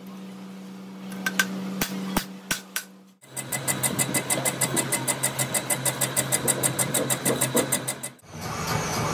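Machinery running in three cut-together pieces: first a steady hum with a few sharp metallic clicks; then a machine with rapid, even knocking, about seven a second, over a lower hum; and near the end a steadier machine hum.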